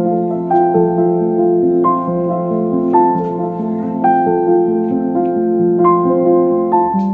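Background piano music: a slow melody of held notes over soft chords.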